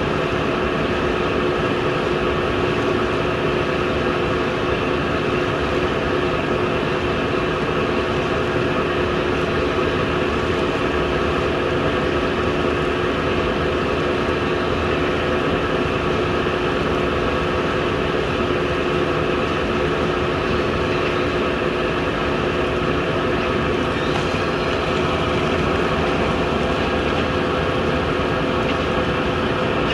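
A boiler running steadily: a constant machine hum with several steady tones over an even rushing noise, unchanging throughout.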